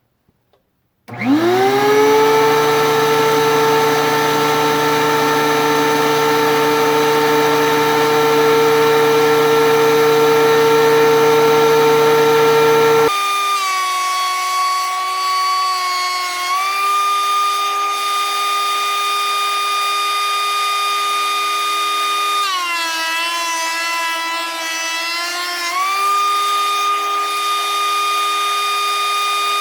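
DeWalt DW735 13-inch thickness planer switched on about a second in, winding up to a loud, steady high whine. Its pitch sags and recovers once briefly and then for about three seconds later on, as the cutterhead takes load while a red oak board feeds through.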